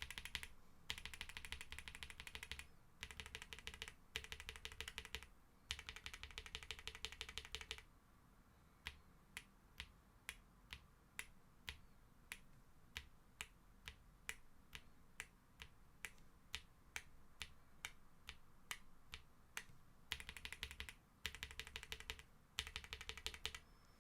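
Typing on a Graystudio Space65 R3 mechanical keyboard with G-Square White Knight switches: fast runs of keystrokes, then a long middle stretch of single, evenly spaced key presses about two a second, then fast runs of typing again near the end.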